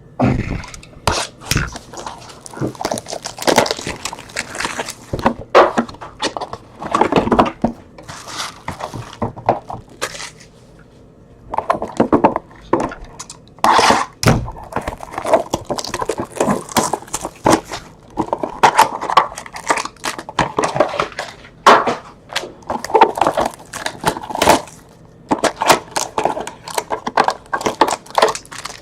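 Plastic and cardboard crackling and tearing, with handling knocks, as a sealed box of trading-card packs is unwrapped and opened: a busy run of sharp crinkles and thumps with a brief pause about ten seconds in.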